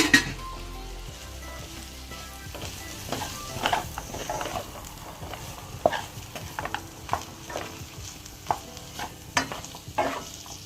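Curry shrimp and freshly added chopped seasonings sizzling in a pot, stirred with a utensil that knocks and scrapes against the pot. A sharp clatter comes right at the start, and more scrapes and knocks follow through the second half.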